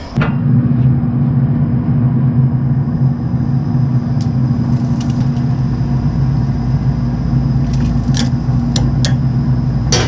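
Steady low hum of a Traeger pellet grill running, its draft fan and pellet feed going, with a few light clicks and knocks at the grill grate about halfway through and near the end.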